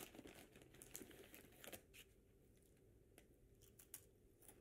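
Faint crinkling of a potato chip bag as a hand rummages in it, busiest in the first couple of seconds and then dropping to a few scattered crackles.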